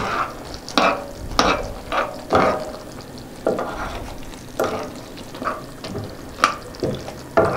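A spoon stirring uncooked elbow macaroni in a pot of boiling tomato sauce: irregular scraping, clacking strokes, about one every half second to a second.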